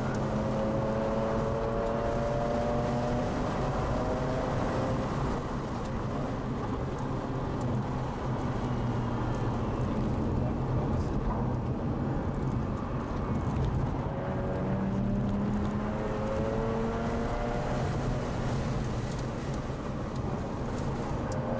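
Mazda RX-8's rotary engine running hard at track speed, heard from inside the car over a steady rush of road and wind noise. Its pitch climbs slowly as the revs rise in the first few seconds and again about fifteen seconds in.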